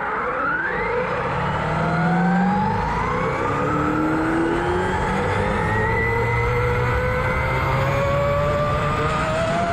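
Castle Creations 2028 brushless motor and its pinion and spur gears whining in a large-scale RC car under full throttle, heard from on board. The whine rises steadily in pitch as the car accelerates from near standstill to about 80 mph, over a rumble of tyres on the road.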